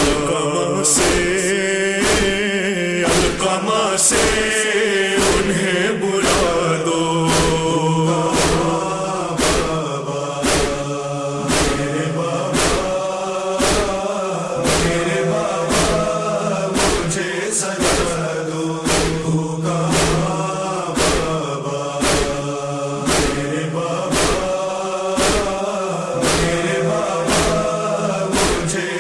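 Urdu noha (Muharram lament) music: voices chanting a held, wavering melody in chorus over a low steady drone, with a sharp beat a little more than once a second.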